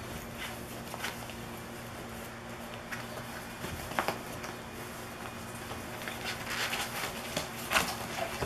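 A ferret scrabbling over and into a fabric 'mouse hunt' cat toy: the nylon cover rustles and crinkles, with scattered scratches and taps of claws. The rustling is busiest about six to eight seconds in.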